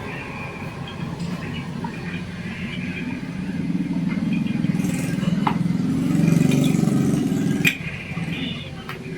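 A motor vehicle engine running, its rumble swelling over a few seconds and then dropping away, with a few sharp metallic clicks, the loudest about three quarters of the way through.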